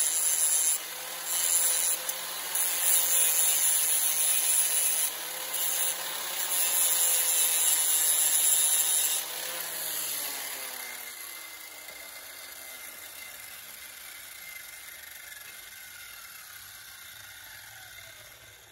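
Angle grinder grinding the teeth of a mild-steel hedge trimmer blade in short passes, the grind breaking off and starting again several times. About nine seconds in the grinder is switched off and its disc winds down, the whine falling slowly away.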